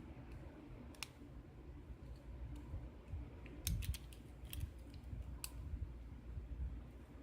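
Lock pick and tension wrench working the pins of a hand-held pin-tumbler lock: scattered light metallic clicks, with a quick cluster of them about four seconds in.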